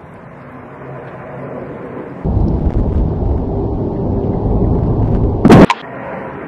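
A loud low rumble starting a little over two seconds in, then a sharp, loud clatter near the end as a Siberian husky drops the water bowl it has picked up off the table onto the wooden deck.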